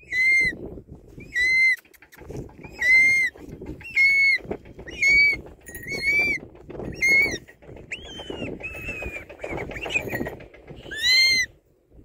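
Short-toed snake eagle calling: a clear, whistled call repeated about once a second, each one briefly arching in pitch, with a few differently shaped calls near the middle.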